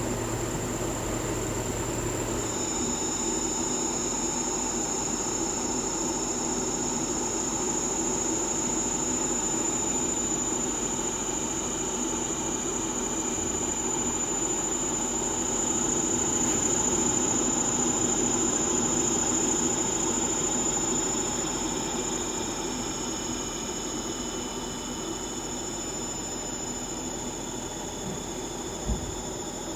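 Dyson Pure Cool Link bladeless fan running with a steady, grating high-pitched whine over its airflow rush, swelling a little midway. The owner suspects the whine comes from the motor; Dyson says it is normal and within spec. A short knock near the end.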